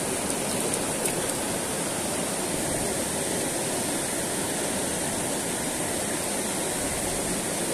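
A shallow rocky stream rushing over stones: a steady, even rush of water.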